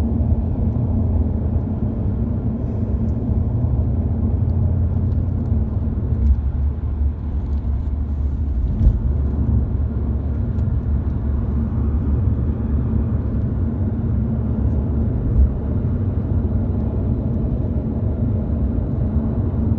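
Steady low rumble of road and engine noise heard inside a moving car's cabin, with a couple of brief knocks, one about halfway through and one later on.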